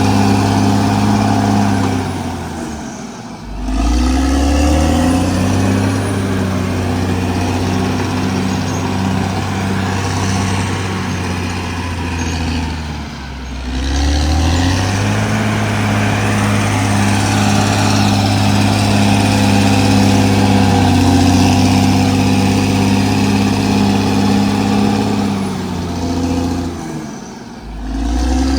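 CAT D6R XL bulldozer's diesel engine running hard while working. Its pitch and loudness drop and then climb back three times, about ten to fourteen seconds apart.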